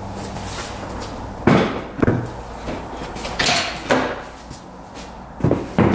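The ATV's plastic seat being unlatched and lifted off its frame: a few separate clunks and knocks, the loudest about a second and a half in and again near the end.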